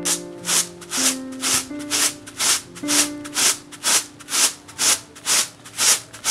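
Millet grains swishing in a plastic basin as it is shaken, in an even rhythm of about two strokes a second. Soft piano music plays underneath.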